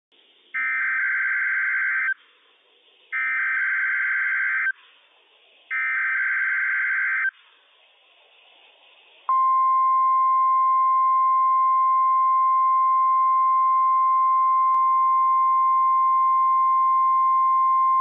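NOAA Weather Radio emergency alert signal. It opens with the three buzzy bursts of the digital SAME header, each about a second and a half long, with faint radio hiss between them. About nine seconds in, the steady single-pitched 1050 Hz Warning Alarm Tone begins and holds, sounded as the weekly test of the warning alarm.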